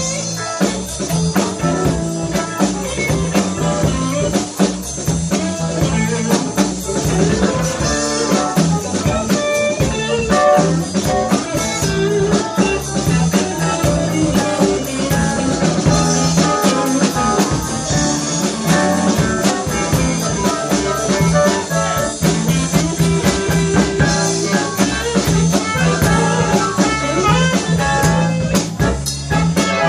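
A live blues band playing with a steady beat: electric guitar over electric bass and drum kit, with saxophone and keyboard in the band.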